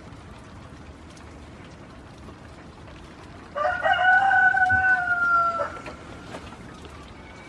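A rooster crowing once: one loud call of about two seconds, held and dropping slightly in pitch toward the end.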